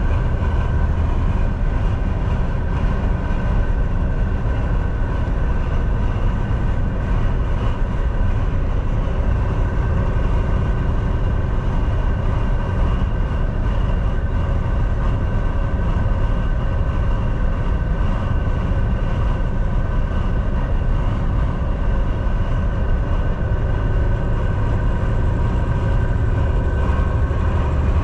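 Semi-truck at highway speed: a steady drone of diesel engine and road noise, with a few faint steady tones held above it and no change throughout.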